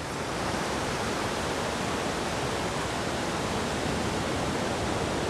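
Steady rushing noise of ocean surf breaking on a sandy beach.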